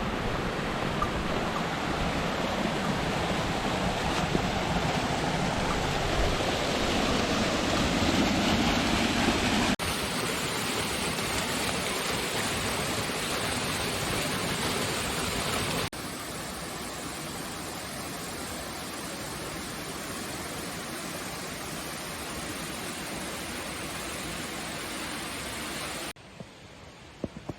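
Steady rush of falling and flowing mountain water, a waterfall or stream. The level steps down abruptly about 10 and 16 seconds in and falls much quieter near the end.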